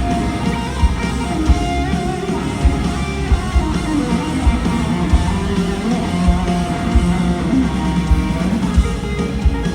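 Live rock band playing an instrumental passage: electric guitars over drums, with kick-drum hits marking the beat.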